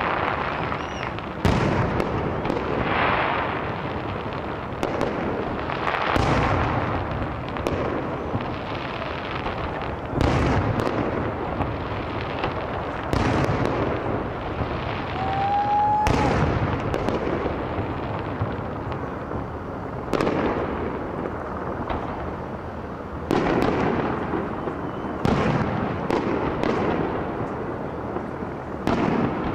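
Fireworks going off: aerial shells and building-mounted pyrotechnics banging and crackling, with sharp reports every second or two and a short rising whistle about halfway through.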